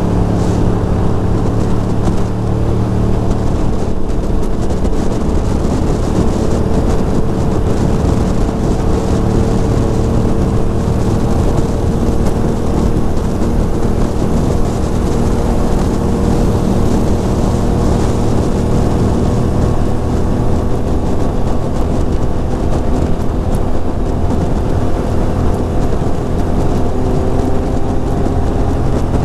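Ducati Monster 620's air-cooled L-twin engine running at a steady cruise, its pitch drifting only slightly up and down.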